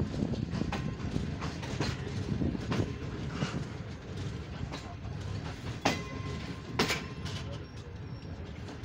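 Passenger train coach rolling slowly into a station, heard from its open doorway: a steady low rumble of wheels on rail with irregular sharp clicks and clacks over rail joints, and some creaking of the coach.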